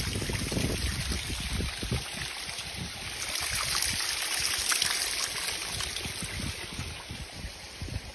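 Water running and trickling down a wet rock face in a steady rush that swells in the middle and eases near the end, with wind gusting on the microphone.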